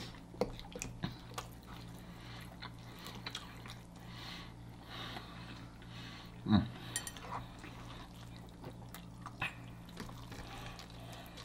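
Quiet eating sounds: a fork working through creamy alfredo pasta, with soft wet squishes and small clicks, and one brief louder sound about six and a half seconds in. A low electrical hum lies underneath.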